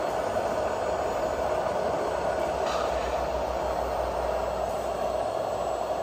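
Radio-controlled scale wheel loader and tipper truck driving, giving a steady mechanical hum from their drives. A low rumble swells through the middle, with a brief higher rattle about three seconds in.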